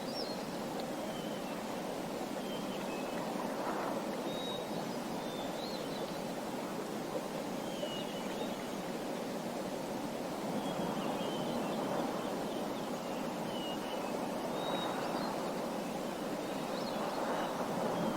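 Small birds chirping, short high calls every one to two seconds, over a steady rushing background.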